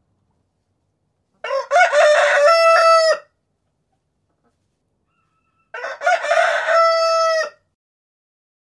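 A rooster crowing twice, about four seconds apart. Each crow is a few short broken notes running into one long held note.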